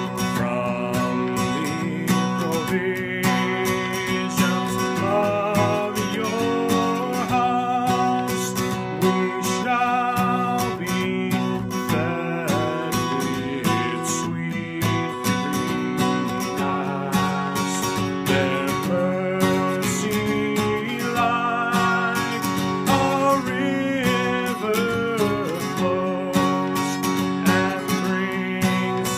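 A man's solo voice singing a psalm hymn, accompanied by a strummed acoustic guitar.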